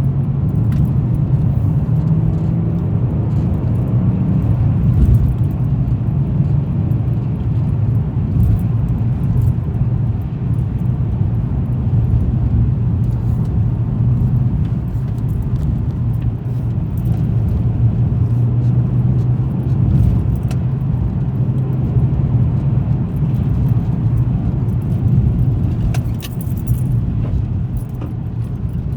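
Car driving along a road: a steady low drone of engine and tyres, with scattered light sharp ticks throughout and a brief flurry of them about four fifths of the way through.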